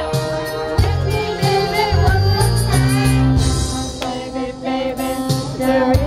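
Karaoke music with a steady beat and bass, and a young girl singing into a microphone over it at times.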